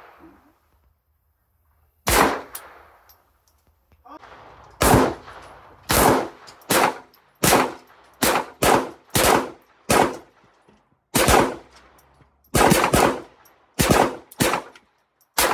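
Handgun shots at a target range: about fifteen sharp reports, a lone shot about two seconds in, then a steady string of shots from about five seconds on, each about half a second to a second apart.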